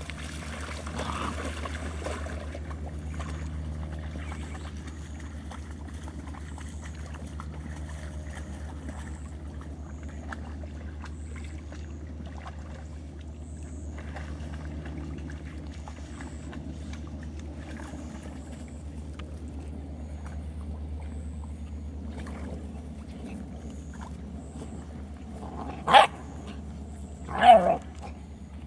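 Two short, sharp yelps from Labrador puppies at play, about a second and a half apart near the end, over a steady low rumble.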